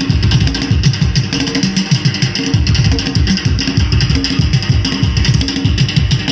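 Loud African dance music with fast, driving drumming and a steady pitched accompaniment.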